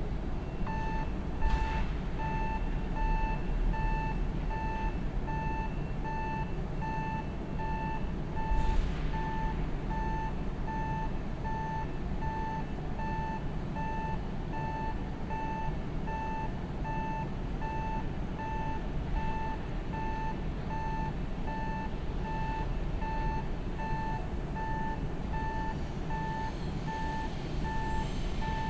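A station train-approach warning beeping steadily: an electronic tone repeating about one and a half times a second, starting just under a second in, signalling a train approaching on the neighbouring line. Under it runs the low rumble of an EH500-hauled freight train pulling into the platform, with two brief louder noise bursts about two and nine seconds in.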